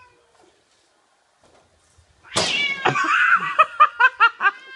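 Domestic cat giving a sudden loud hissing yowl about two seconds in, then a quick run of short yowls, about four a second: threat calls of an upset cat.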